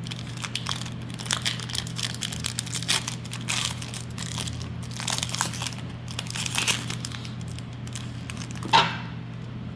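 Foil wrapper of a Pokémon booster pack crinkling and tearing as it is worked open, with one louder rip near the end. A steady low hum runs underneath.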